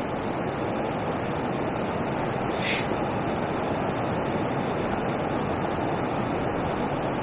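Steady rushing of water pouring over a river weir, an even, continuous noise. A brief high-pitched sound about two and a half seconds in.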